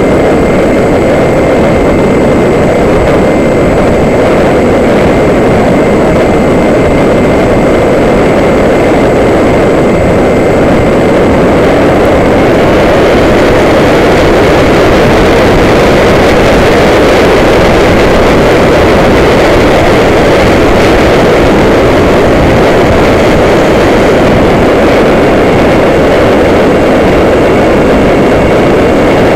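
Loud, steady wind rush over the onboard camera's microphone as an F-27Q Stryker electric flying-wing model flies, mixed with its motor and propeller noise, with a thin steady whine above.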